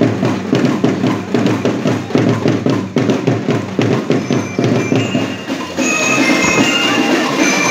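A marching band's bass-drum section plays a fast, driving rhythm of many deep strokes. About six seconds in, the strokes blur together and several high, sustained ringing tones come in over the drums.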